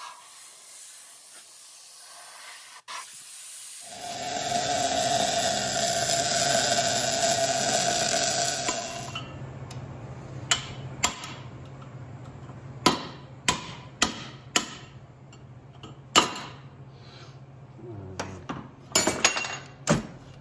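Welding a bead onto a steel bearing race in a drum-brake hub for about five seconds, a steady crackling hiss, done so that the race shrinks and can be driven out. Then hammer-and-chisel blows on the race, about ten sharp metal strikes spaced unevenly over the last ten seconds.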